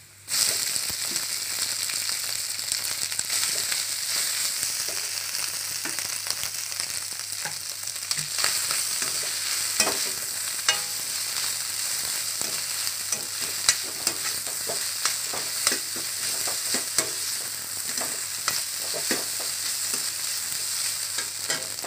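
Chicken and vegetable stir-fry mix hitting hot oil in a kadai and sizzling steadily from just after the start, while a slotted steel spatula stirs it, scraping and knocking against the pan in irregular clicks.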